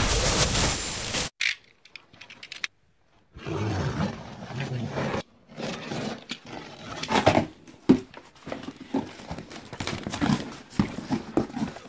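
A loud explosion sound effect for about the first second, cutting off suddenly. After a short silence comes the rustling, scraping and knocking of a cardboard shipping box being opened and its white foam packaging handled.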